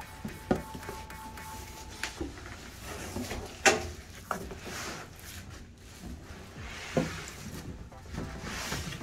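Handling of the shipping box and packing of a heavy steel safe during unboxing: a few separate knocks and bumps, the sharpest a little over a third of the way in, between stretches of soft rustling.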